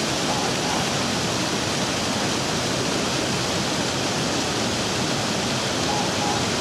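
Small waterfall pouring down a rock face onto stones: a steady rush of falling water.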